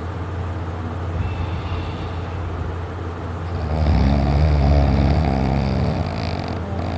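Heavy snoring from a sleeper over a steady low hum, with one long, louder snore starting about halfway through and lasting about three seconds.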